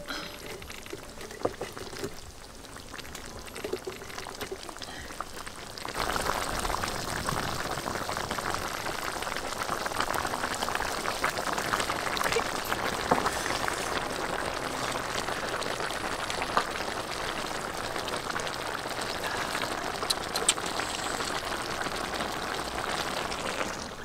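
Spicy chicken stew boiling in a pot, a steady crackling bubble of broth that grows louder about six seconds in.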